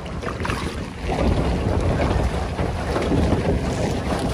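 Wind rumbling on the microphone over water splashing around a pedal boat; it gets louder about a second in.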